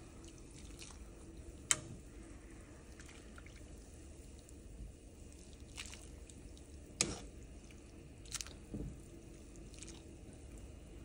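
Water bubbling at a boil in a stainless-steel pot as thin spaghetti is stirred with a metal pasta server. The server clinks sharply against the pot a few times, loudest about two seconds in and again about seven seconds in.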